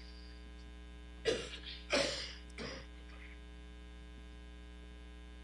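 Steady electrical mains hum at a low level. Three short noisy sounds break in between about one and three seconds in.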